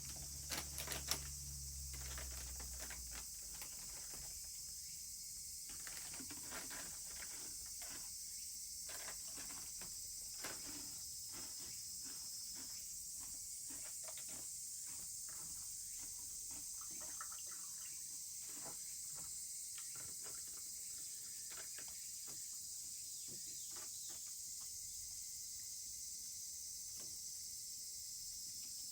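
Wood campfire crackling, with irregular small pops and a few sharper snaps in the first second or so, over a steady high drone of insects.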